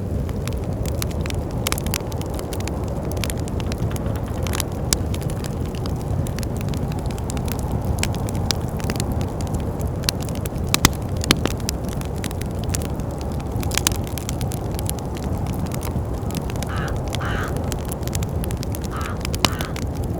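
Wood fire crackling with frequent sharp pops over a steady low rumble of wind. Three short higher-pitched sounds come near the end.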